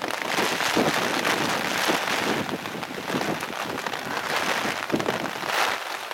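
Heavy rain falling steadily, with a few brief louder gusts or spatters on the microphone.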